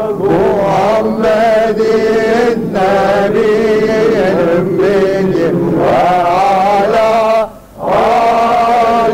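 Voices chanting an Arabic supplication of a Sufi prayer for rain, in long held, wavering lines, with a short break for breath about seven and a half seconds in.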